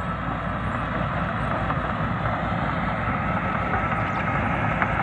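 SD13 crawler bulldozer's diesel engine running steadily as it works, a constant low rumble with a faint steady high whine over it.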